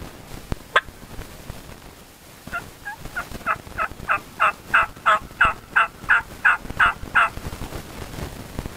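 A series of about fifteen turkey yelps, evenly spaced at roughly three a second, building in loudness over the first few notes. A single sharp click comes a couple of seconds before them.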